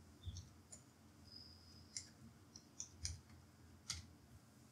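Faint typing on a computer keyboard: about eight separate key clicks at an irregular pace, with a low room hum beneath.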